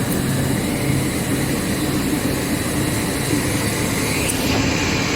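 Steady running noise of a rubber hose production line's machinery: a constant low hum under an even mechanical din.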